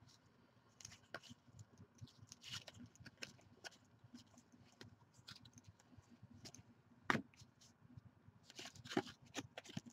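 Basketball trading cards being flipped through by hand: faint slides and clicks of card stock as each card is moved, with one sharper snap about seven seconds in.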